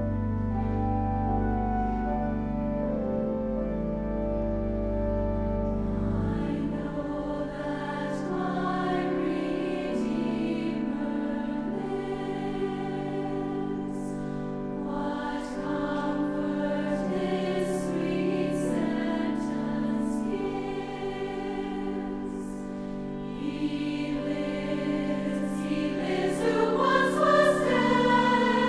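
Background music: a choir singing slow, sustained chords over a low held bass note that drops out about six seconds in; the voices climb in pitch near the end.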